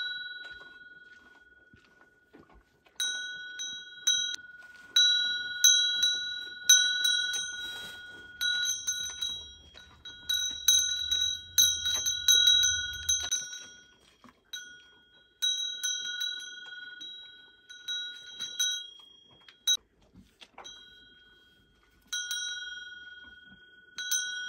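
A metal bell on a cow's collar clanking irregularly as the cow moves its head, each strike ringing and fading away. The bell falls silent briefly a couple of times.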